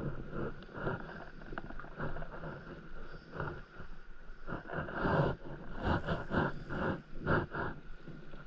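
Small waves lapping and slapping against the hull of an inflatable paddleboard in an irregular run of soft splashes, a little stronger and quicker about two-thirds of the way through, with some wind on the microphone.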